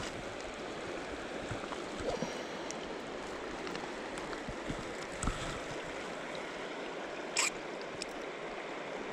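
Shallow river running over a stony bed, a steady rush of water. A few faint clicks sound over it, with a sharper click about seven seconds in.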